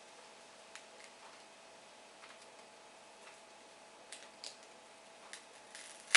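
Fingers picking at and peeling sticky tape off a laptop LCD's display cable connector: scattered small ticks and crackles, then a short scratchy peel and one sharp snap near the end.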